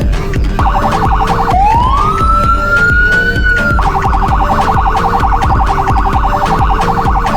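Senken CJB100BD electronic siren on test: a rapid warble starts about half a second in, switches to a rising wail a second later, and goes back to the rapid warble near four seconds in. Background music with a steady beat plays underneath.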